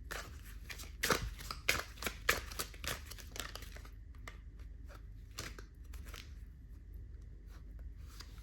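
A deck of tarot cards being shuffled by hand: a quick run of crisp card snaps and flicks for about three and a half seconds, then fainter, sparser shuffling.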